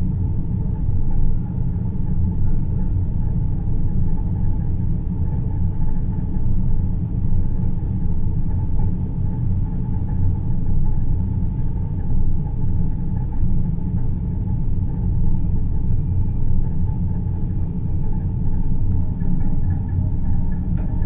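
Space-themed sleep ambience: a steady, deep rumbling drone, with faint steady tones held higher up and no change throughout.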